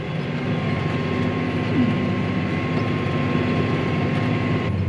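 John Deere tractor running steadily under load while planting, heard as a constant low engine drone with a faint steady high whine.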